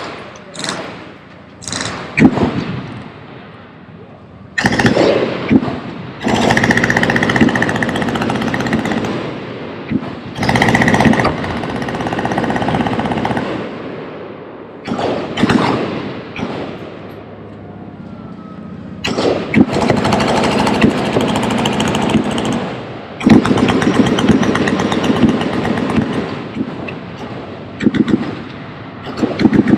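Automatic gunfire from machine guns: long strings of rapid fire lasting several seconds each, broken by short bursts and single shots.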